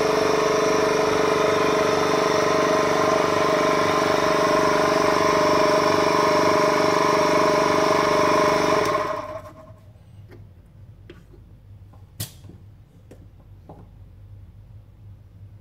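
Vacuum pump running with a steady hum, pulling air out of the chamber, then switched off about nine seconds in. After that come faint ticks and one sharp click.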